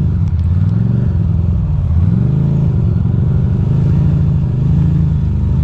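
The air-cooled V-twin of a 2006 Ducati Monster 620 running at low revs while riding slowly, rising and falling in revs twice, about one and two seconds in.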